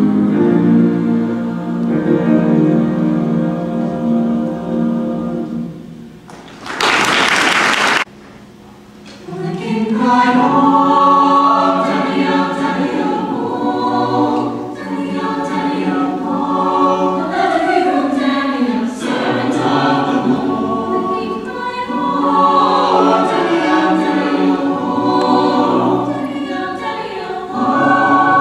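Mixed high-school choir singing in parts: a held chord for the first few seconds, then a loud hiss lasting over a second, a short hush, and the voices coming back in with moving lines.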